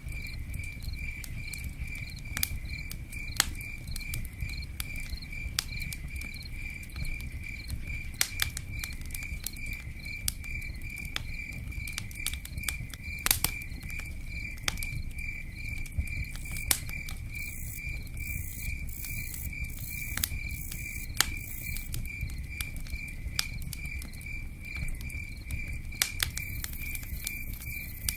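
A cricket chirping steadily in an even, repeating rhythm, several chirps a second, over the low rumble and scattered sharp crackles and pops of a campfire with rain pattering.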